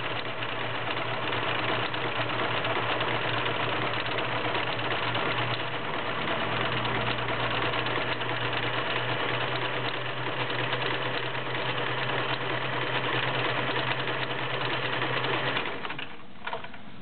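Vintage Kenmore model 1625 all-metal sewing machine running steadily, sewing a stretch stitch with the fabric feeding forward and back. It stops about a second before the end, followed by a few light clicks.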